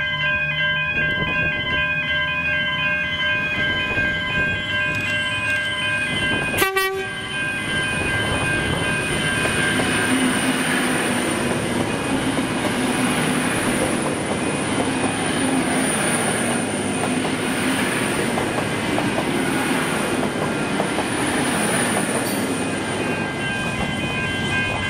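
V/Line Vlocity diesel multiple unit running express through the station at speed. A high whine rises as it approaches, then a brief horn blast sounds about a quarter of the way in. The loud rush of its engines and wheels and a steady high whine follow as the carriages pass.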